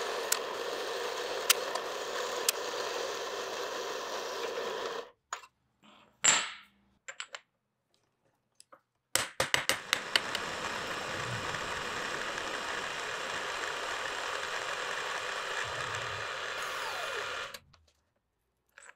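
Metal-cutting bandsaw sawing through a block of aluminium, a steady cutting noise that stops about five seconds in. After a short gap with a few clicks, an end mill on a milling machine cuts aluminium steadily while squaring up the block, with sharp ticks as the cut begins, stopping shortly before the end.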